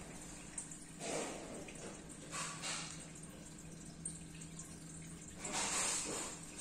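Water dripping and splashing in short bursts over a steady low hum: one about a second in, two close together around two and a half seconds, and a longer, louder one near the end.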